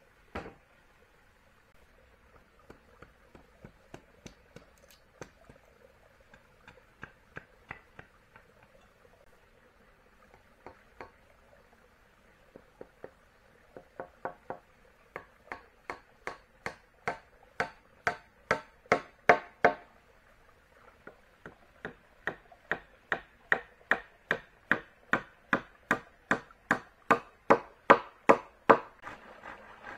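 A hand tool striking wood again and again: a few scattered, quieter blows at first, then two long runs of about three blows a second, each growing louder, with a short break between them.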